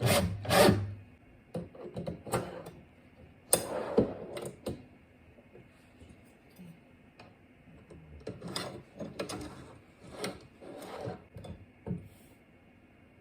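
Irregular short scrapes and knocks of wood and small hardware being worked by hand, loudest in the first second and around four seconds in, with softer strokes later.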